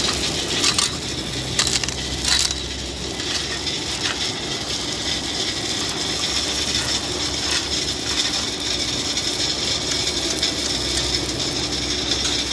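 Loose rock crunching and shifting, with a few sharp clacks of stone on stone in the first few seconds, over a low, steady engine hum.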